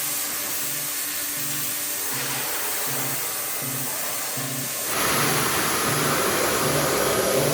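Background music with an evenly repeating bass pattern over the steady hiss of a pressure washer spraying, which gets louder about five seconds in.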